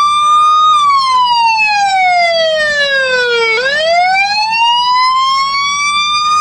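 Electronic police-style siren mounted on a car, sounding a slow wail: the pitch falls steadily for about three seconds, turns sharply at the bottom, and climbs back up over the next three seconds.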